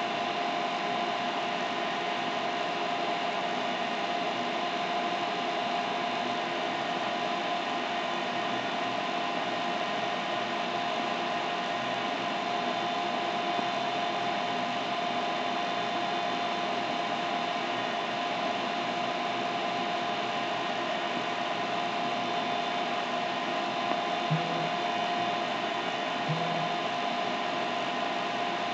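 Steady machine-like hum and hiss with a constant whine running through it, unchanging throughout; two faint short knocks near the end.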